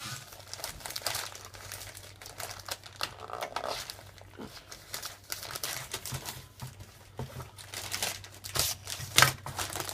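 Plastic kit packaging crinkling and rustling in irregular crackles as the parts are handled, with one louder crackle near the end.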